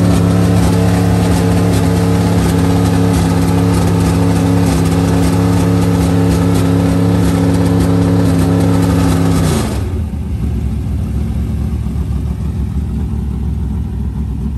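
Race car engine held at a steady speed, then let off sharply about ten seconds in, leaving a lower, rougher engine rumble.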